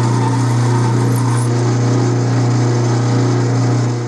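Atlas 12-inch lathe running steadily as a large center drill in the tailstock chuck cuts into the end of a spinning stainless steel bar, lubricated with plenty of oil. The sound is a steady low hum with a constant higher whine over it.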